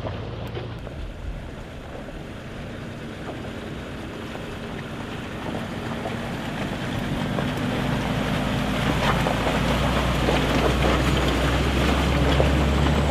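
Off-road 4x4's engine running steadily under load and getting louder over the second half, with wind buffeting the microphone.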